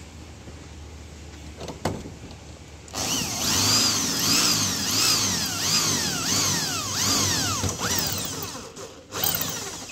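Handheld electric drill boring into a metal bracket plate on a truck box door. It starts about three seconds in with a whine that rises and falls in pitch over and over as the bit bites, stops near the end, and briefly starts again.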